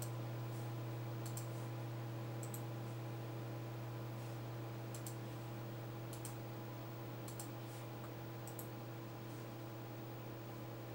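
Steady low electrical hum on the broadcast audio feed, with a fainter higher tone and faint, irregular high-pitched clicks about once a second.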